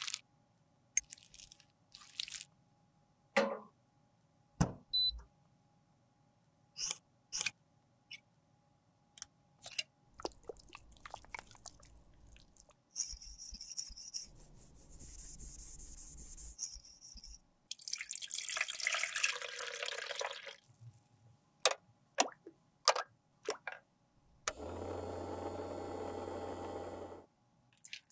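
Close-up handling sounds of a lipstick being taken apart: a metal spatula scraping the lipstick, and sharp clicks and taps of the plastic and metal tube parts. Between them come several stretches of steady hissing noise, each a few seconds long.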